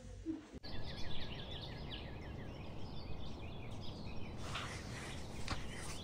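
Small birds chirping rapidly and repeatedly over a steady rushing background noise. The chirping stops about four seconds in, leaving the background noise with a few brief rustles.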